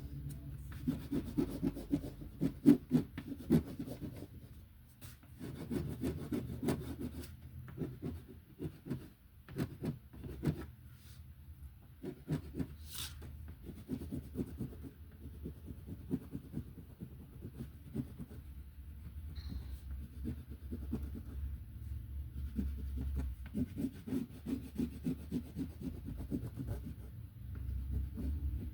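A colouring tool shading on paper in quick back-and-forth strokes, rubbing in bursts with short pauses and an occasional sharper tick.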